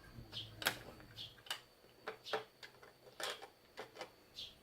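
Plastic LEGO pieces clicking and tapping as they are handled and fitted together: about a dozen light, irregular clicks.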